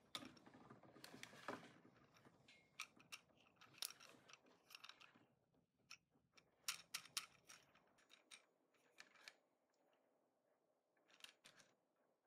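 Near silence with faint, scattered clicks and taps from hands handling a microwave turntable motor and clipping test leads onto its terminals, with a small cluster of clicks a little past the middle.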